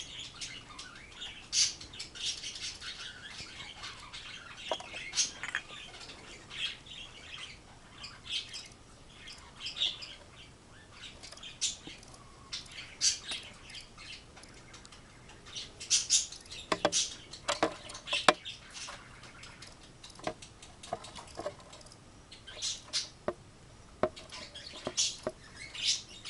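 Scattered light clicks and scratchy rustles at irregular intervals, busiest about two-thirds of the way in and again near the end.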